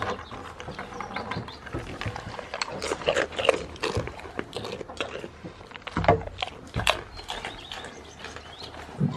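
Goats snuffling and nibbling right at the microphone: irregular crunchy clicks and breathy sniffs, with a few heavier bumps against the camera or surface about six, seven and nine seconds in.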